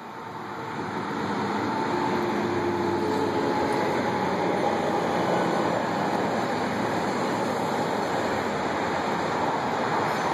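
Steady rushing noise of passing road traffic that builds over the first two seconds, with a faint engine hum in the first few seconds.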